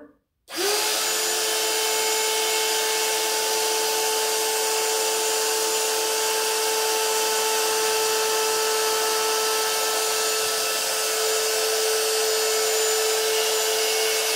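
Parkside PALP 20-Li B2 cordless air pump switching on about half a second in and running steadily: a constant motor hum over a strong rush of air as it inflates a chamber of an inflatable pool lounger.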